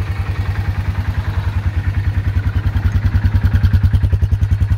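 Yamaha 4x4 ATV's single-cylinder four-stroke engine idling, a steady, even chug of about a dozen exhaust pulses a second that grows a little louder toward the end.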